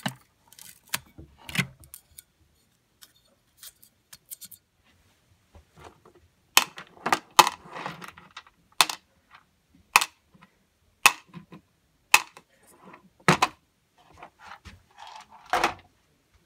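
Sharp clicks and light clatter of small hard parts being handled, with a run of single clicks about one a second through the middle and a short, louder clatter near the end.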